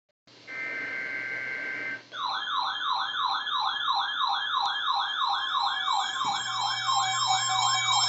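NOAA weather radio receivers sounding their alert for a warning: a couple of seconds of hiss with a steady tone, then an electronic siren of rapid rising whoops, about four a second. A further steady alert tone joins about six seconds in.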